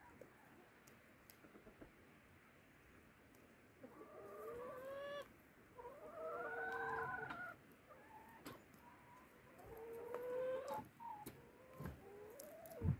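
Brown hens calling: three drawn-out calls whose pitch bends up and down, the longest and loudest about six to seven seconds in, then a few short clucks. A dull thump comes just before the end.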